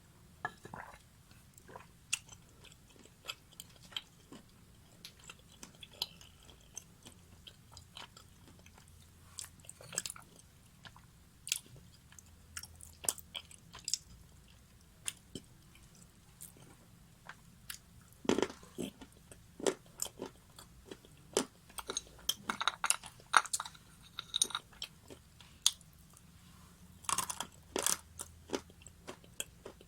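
Close-miked biting and crunchy chewing: sharp, irregular crackles, sparse at first and coming in thicker bunches in the second half.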